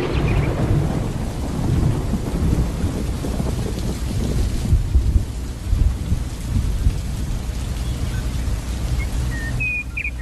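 Rolling thunder over steady rain, with heavy low rumbling throughout. Near the end the rumble falls away and a few bird chirps come in.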